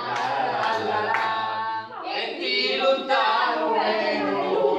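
Several voices singing together without instruments.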